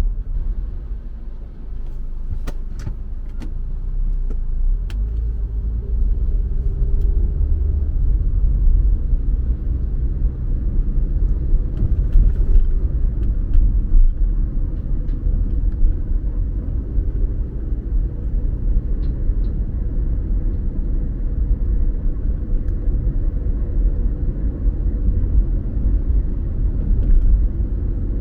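Car driving, heard from inside the cabin: a steady low rumble of engine and tyres on the road that grows louder over the first few seconds and then holds even, with a few faint clicks and ticks early on.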